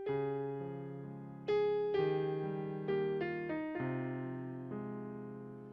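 Digital stage piano playing the slow opening of a hymn: soft chords struck one after another and left to ring and fade, with a few quicker chord changes in the middle and a longer fade near the end.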